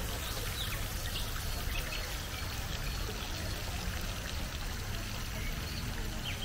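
Water pouring steadily from a carved stone spout into a pond, a continuous splashing trickle.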